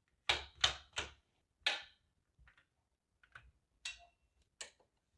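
Wall toggle light switches being flipped: four sharp clicks in the first two seconds, then a run of lighter, scattered clicks.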